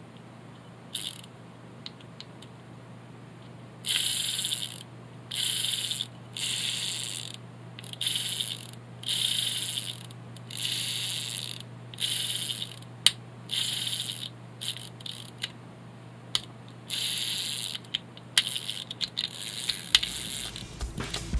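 Shimano Demi 120 baitcasting reel's mechanism ratcheting in about a dozen short bursts of half a second to a second each, with a faint steady hum underneath.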